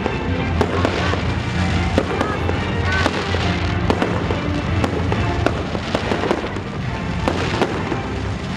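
Fireworks display: a dense run of sharp bangs and crackles, over music with a steady bass line.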